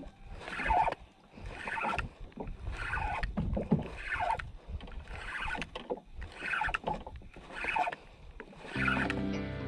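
Ryobi Virtus 7000 spinning reel being cranked steadily to retrieve line, a swish about once a turn, a little more than once a second. Music comes in near the end.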